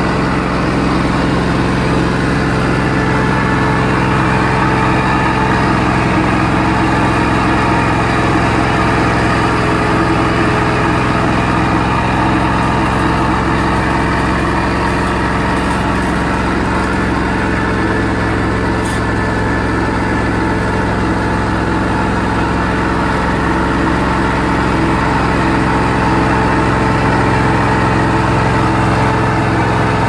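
Portable sawmill engine running steadily below full throttle, driving a sanding disc across a macrocarpa slab: a constant machine hum with several steady tones.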